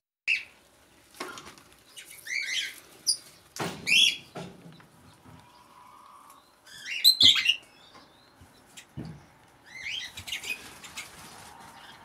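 Parrots calling: short chirps and squawks every second or two, with a few sharp knocks in between.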